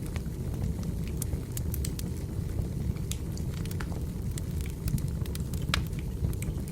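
Wood fire burning: a steady low rumble of flames with frequent sharp, irregular crackles and pops from the burning logs.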